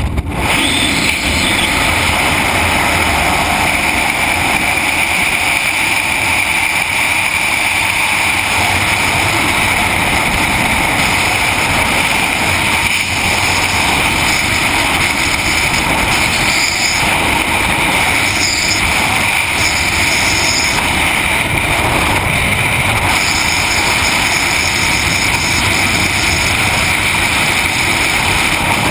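Freefall wind rushing over a helmet camera's microphone: a loud, steady rush of air as the skydiver falls.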